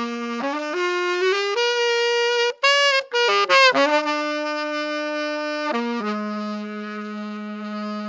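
Saxophone played with a deliberately poor, beginner-like tone: a rising run of notes, a wobbling, bending squawk about three seconds in, then two long held notes.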